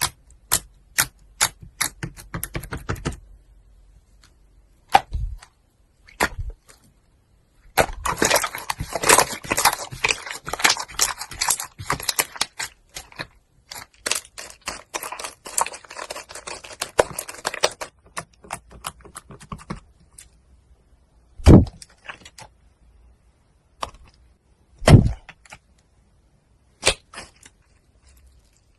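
Slime being squeezed and worked by hand, giving off sharp pops and clicks: a run of separate clicks at the start, a long stretch of dense crackling in the middle, and a few louder, deeper pops later on.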